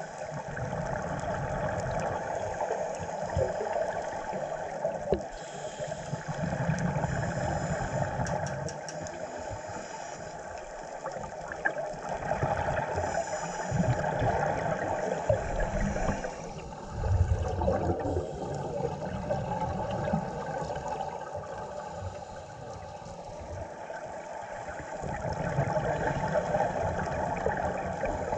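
Scuba breathing heard underwater: bubbling regulator exhalations that swell and fade every few seconds over a steady rushing underwater background.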